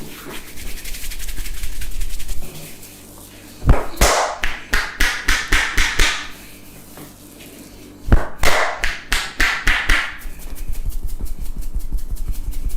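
Percussive hand massage on a person's head by a barber: a fast, light patter of tapping, then two runs of loud, sharp slaps at about five a second, each about two seconds long with a short pause between, then the light patter again.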